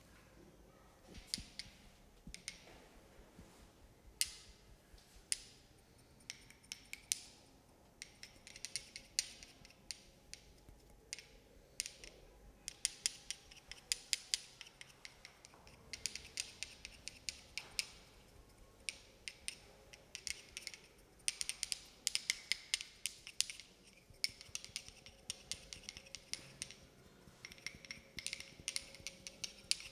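Crisp, close-up clicking and snipping sounds in quick irregular runs, sparse at first and much denser from about eight seconds in.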